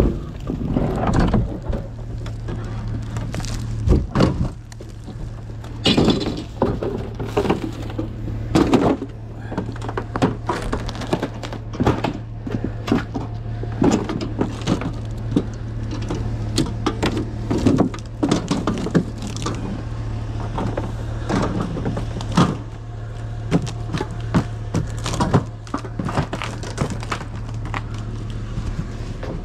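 Scrap metal being handled and dropped: irregular clanks and thunks, some sharp and loud, over a steady low hum.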